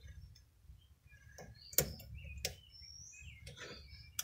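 A handful of light knocks and clicks, the loudest a little under two seconds in, as the generator's oil drain hose and its capped end are fitted back into their holder on the enclosure. Faint bird chirps in the background.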